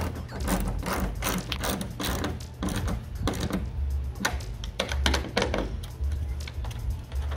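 Irregular clicks and taps of a screwdriver and plastic-and-metal light-mount parts as screws are driven into a roof light bar, over background music with a low bass beat.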